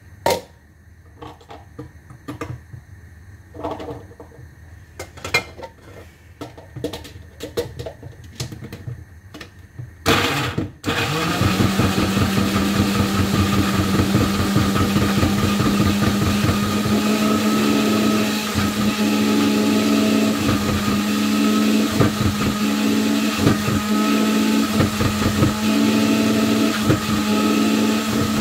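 Countertop electric blender grinding a spice paste of garlic, onion, ginger and shallots. It switches on about ten seconds in with a short burst, then runs steadily with a low hum. Before it starts there are scattered small clicks and knocks.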